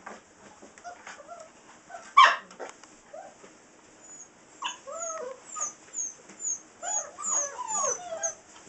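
Six-week-old Saint Bernard puppies crying: one loud short yelp about two seconds in, then a run of high, rising-and-falling whines and squeals from about four seconds in until near the end.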